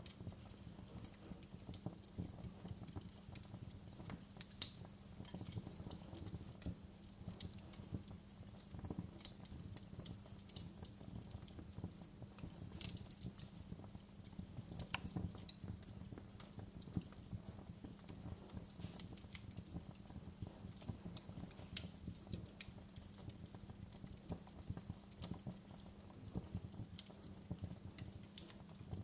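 Fire crackling: irregular sharp pops and snaps over a steady low rumble and hum, the loudest pop about four and a half seconds in.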